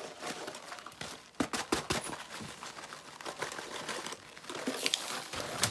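Borax powder poured out of its container onto the turkey fan's base: a grainy hiss with a few sharp clicks and taps from handling the container, the hiss strongest near the end.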